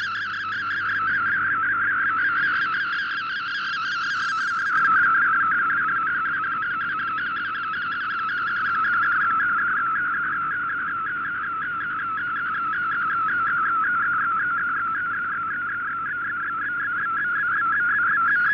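Digital picture transmission received on shortwave and decoded as MFSK: a continuous, rapidly warbling data tone centred around 1.5 kHz over background hiss. Its level swells and sags slowly every few seconds.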